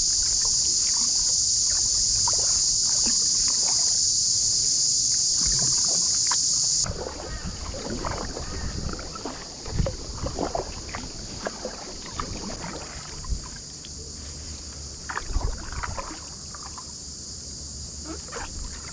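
Kayak paddle strokes with water splashing and dripping off the blade. Over them runs a loud, steady, high-pitched cicada buzz that cuts off about seven seconds in, leaving a fainter buzz.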